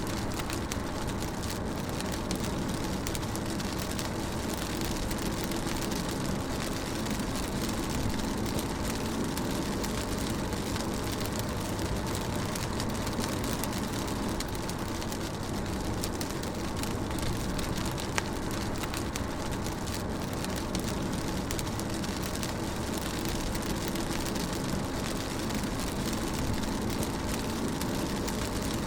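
Rain drumming on a moving car, heard from inside the cabin, over a steady low rumble of road and engine noise, with a few drops ticking.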